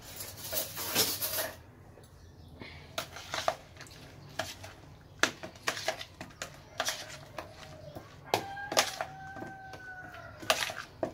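Kachumbari salad of sliced tomatoes and onions being mixed in a plastic bowl: irregular clicks, taps and light rustling as the pieces are turned over against the bowl, with a short squeaky tone about eight and a half seconds in.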